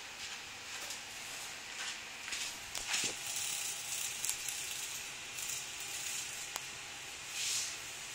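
A dog pawing at a dragonfly on a concrete floor: soft scuffs and crackles in short swells, a few sharp clicks, over a steady hiss.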